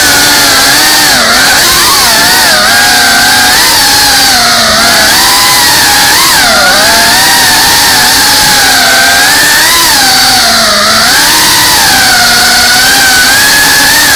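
FPV drone's brushless motors and propellers whining loudly, the pitch wavering up and down constantly as the throttle changes in fast flight, recorded close up by the camera on the airframe.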